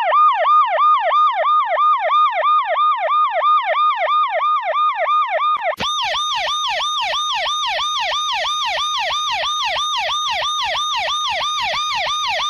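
Emergency-vehicle siren in fast yelp mode: a rapid up-and-down wail, about three to four sweeps a second. About six seconds in it switches abruptly to a second yelp siren with a brighter, harsher tone.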